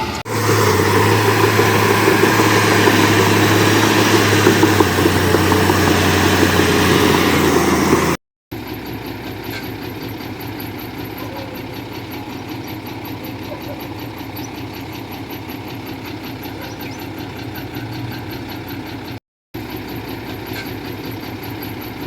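Heavy diesel machinery engine running steadily, loud for about the first eight seconds; the sound drops out briefly twice, with quieter steady engine running after each break.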